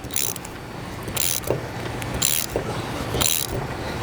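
Wrench turning the torsion-spring adjuster of a compact torsion swivel hose loader, a short metallic rasp about once a second as the wrench is worked back and forth.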